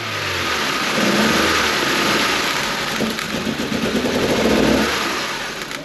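Kia Rio's four-cylinder engine starting up and running unevenly, struggling to keep running after being reassembled.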